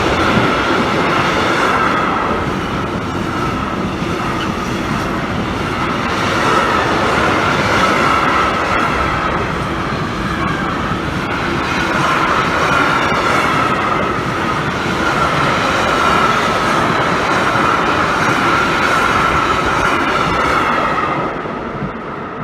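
Train passing close by, its wheels running loudly and steadily over the rails with a wavering high-pitched tone above the rumble, easing off slightly near the end.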